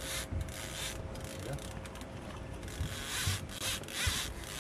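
Fishing reel ratcheting and whirring in short spells while a striped bass is played on the line, the loudest spells about three and four seconds in, over a faint steady hum.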